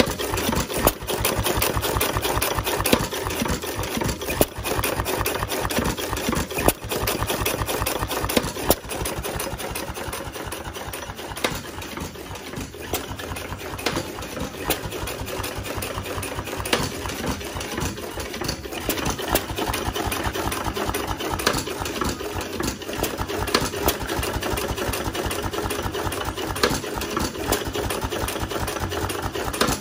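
1 1/2 hp Novo hit-and-miss engine running, a rapid even clatter with louder single beats every second or two.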